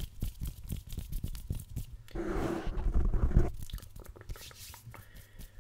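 ASMR hand sounds on a foam-covered microphone: quick crackles and clicks from fingers brushing and plucking at the foam windscreen, with a louder rough scratching about two seconds in that lasts over a second.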